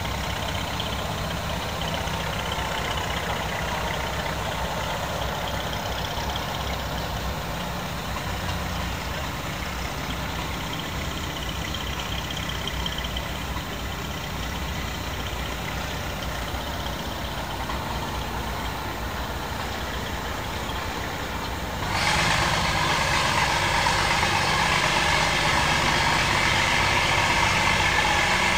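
An engine idling steadily, a low running hum. About three-quarters of the way through, a louder steady rushing noise starts suddenly and keeps on over the hum.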